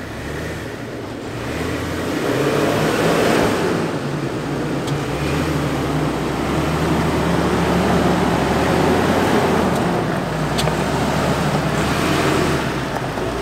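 Third-generation Toyota Tundra's twin-turbo V6 running at low speed as the truck crawls over rock and sand, the engine note swelling a couple of times, with tyre and trail noise underneath.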